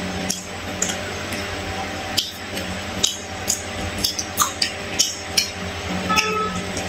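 Close-miked eating: chewing and crunching of crispy fried fish and raw green chilli, with many short, sharp crisp clicks, often several a second.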